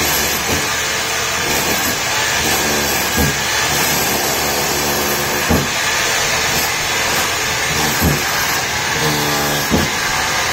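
SDS hammer drill with a chisel bit hammering steadily, chiseling carpet tack strip nails out of a concrete floor, with a sharp knock every two to three seconds.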